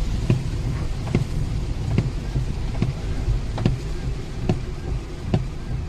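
Inside a car driving on a rain-soaked highway: steady road and engine rumble with the hiss of rain, and windscreen wipers knocking at a regular beat, about once a second.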